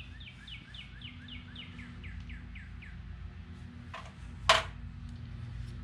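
A songbird singing a fast series of short down-slurred notes, about four a second, for the first three seconds. About four and a half seconds in comes a single sharp click, the loudest sound, over a low steady hum.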